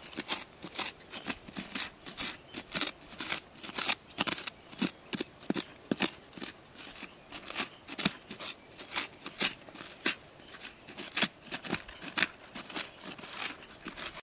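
A small pointed hand digging tool scraping and stabbing into damp, gritty soil to dig around a buried find. The scrapes come in quick, irregular strokes, about two or three a second.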